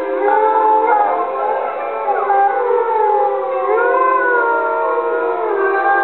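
A pack of wolves howling together, several long, gliding howls overlapping at different pitches, with music underneath.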